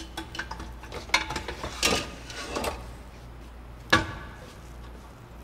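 Pots, pans and kitchen utensils clattering as they are handled: a run of irregular metallic knocks and clinks, some briefly ringing, with the sharpest clank about four seconds in, over a low steady hum.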